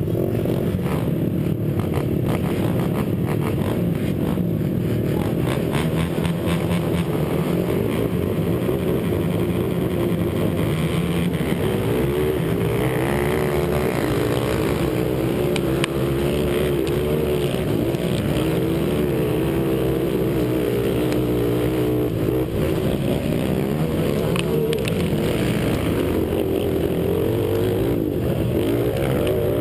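Racing ATV engine heard from a camera on the quad, running hard as it pulls away from the start and races across dirt, its pitch rising and falling with throttle and gear changes, with other quads' engines around it.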